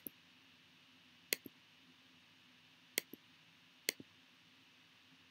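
Computer mouse clicked four times at irregular intervals, each a sharp press followed about a tenth of a second later by a softer release, over faint room tone.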